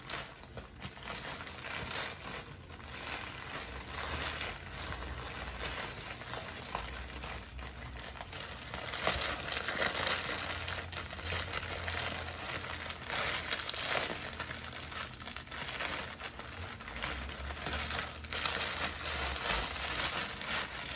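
Plastic poly mailer bag crinkling and rustling in irregular bursts as hands grip and pull at it to open it.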